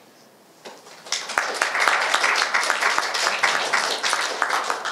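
Audience applauding, starting about a second in and easing off near the end.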